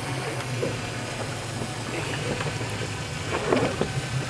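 A boat engine running with a steady low drone, under a haze of wind and water noise.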